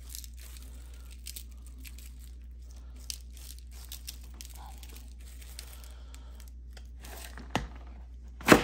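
Seasoning shaken from a shaker onto pumpkin seeds on a paper plate: light, irregular ticks and rustles, with a low steady hum under them. A sharp knock comes near the end.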